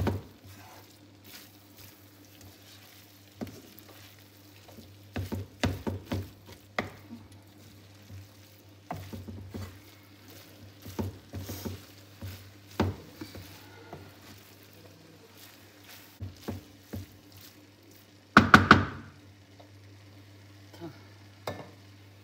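Wooden spatula stirring and scraping minced meat in a nonstick frying pan, with light sizzling and irregular knocks against the pan, over a low steady hum. A louder clatter comes about eighteen seconds in.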